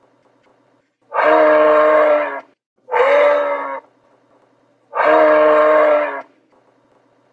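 A moose calling: three loud, steady-pitched calls, the first about a second in, each around a second long, with short quiet gaps between them. The middle call is shorter and slides up in pitch at its start.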